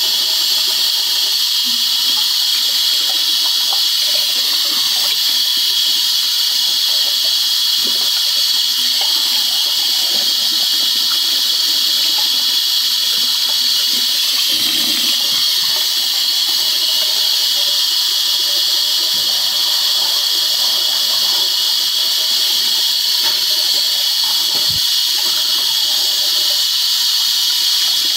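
Water running steadily from a bathroom sink tap into the basin.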